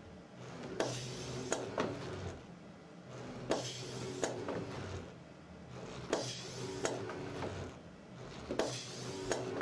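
UR3 collaborative robot arm's joint motors whirring through repeated pick-and-place moves, one cycle about every two and a half seconds, each with clicks and knocks as a box is gripped and dropped and a stretch of hiss. A conveyor belt runs with a steady low hum beneath.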